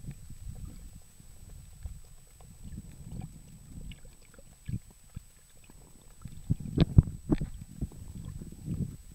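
Muffled underwater rumble of water moving around a submerged camera, with several sharp knocks or splashes clustered around seven seconds in.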